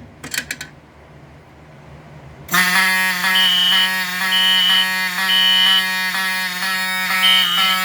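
Edwards fire alarm pull station pulled with a few sharp clicks; about two and a half seconds in, the fire alarm system sounds. A Wheelock 7002 horn sounds continuously with a buzzy tone, while a Code 3 horn beeps a higher tone in the temporal-three pattern: three half-second beeps, a pause, then three more.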